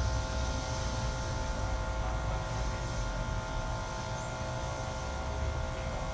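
Urban morning background: a low traffic rumble that eases off at the start, under a constant buzzing hum of several held tones, with a faint high chirp about four seconds in.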